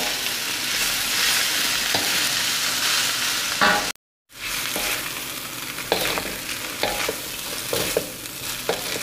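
Boiled noodles and vegetables sizzling in a hot wok while a spatula stirs and tosses them, with repeated scrapes and knocks of the spatula against the pan. The sound cuts out completely for a moment about four seconds in.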